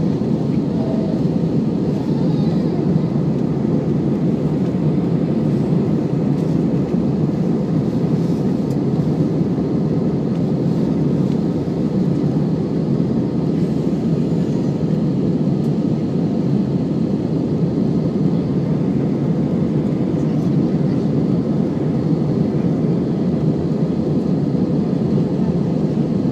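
Airbus A318 passenger cabin in flight: the jet engines and the air rushing past make a steady low drone that holds unchanged throughout.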